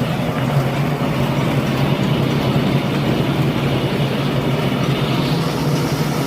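Sand-sieving machine running steadily: an even mechanical drone with a constant low hum.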